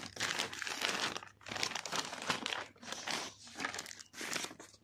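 Plastic courier mailer bag and bubble wrap crinkling and rustling in irregular bursts as a parcel is opened by hand and a bubble-wrapped item is pulled out.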